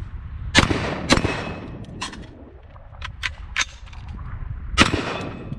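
Rifle fired twice in quick succession, then a few short sharp clicks of a magazine reload, then a third shot near the end.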